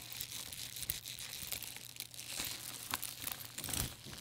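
Gold-tone metal chain strap, woven with leather, of a modern caviar-leather Chanel flap bag, jiggled so its links clink and rattle against each other, with some leather rustle. This chain noise is the one she calls "so loud" and puts down to the caviar-leather build.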